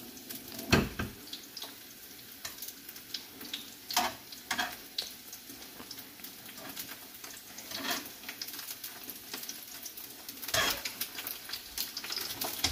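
Eggs sizzling in oil in a frying pan, with a cooking utensil knocking and scraping against the pan several times; the loudest knock comes about a second in.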